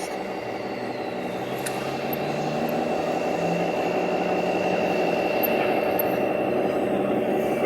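A machine running steadily with a constant high whine over it, slowly growing louder.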